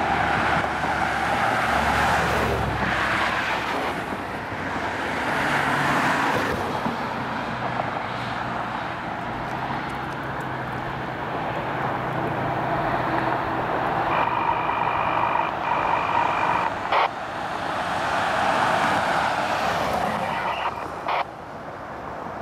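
Road traffic, with vehicles swelling past one after another in a steady rushing noise. About two-thirds of the way through, a short steady high tone sounds two or three times.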